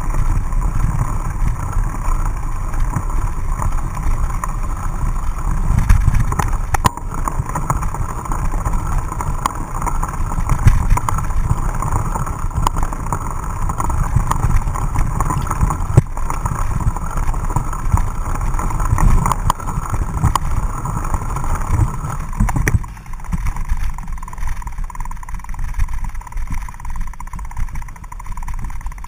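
Wind buffeting and low rumble on a bike-mounted action camera as a mountain bike rides a muddy dirt trail, with scattered clicks and rattles from the bike. Near the end the rumble eases as the riding gives way to pushing the bike uphill on foot.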